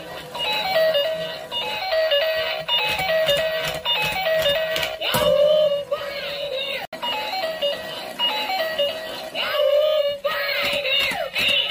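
Musical dancing dog toy playing its electronic tune: repeated runs of quick single notes stepping down in pitch, with swooping rising-and-falling tones around the middle and again near the end.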